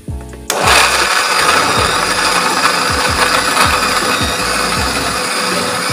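Electric countertop blender switching on about half a second in and running steadily at full speed, pureeing shallots and garlic with water.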